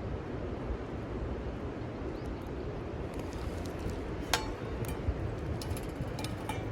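Wind rumbling steadily on the microphone. Starting about four seconds in, a few sharp light clinks sound.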